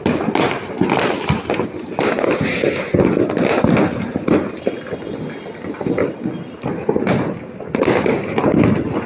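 Many fireworks and firecrackers going off, a dense run of overlapping bangs and crackles with no break.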